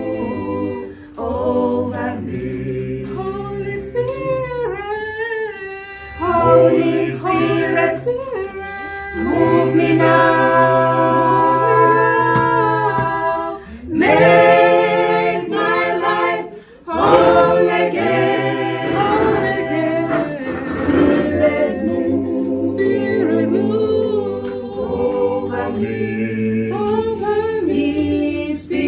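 A small group of voices singing together a cappella, in long phrases with brief pauses between them.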